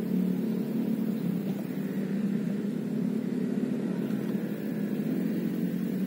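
Steady low mechanical drone, like an engine running, holding one even pitch without rising or falling.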